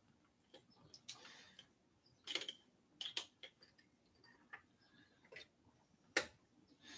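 Faint, irregular clicks and taps from hands working the handlebar and its controls on a folding e-bike, about ten in all, the sharpest a little after six seconds.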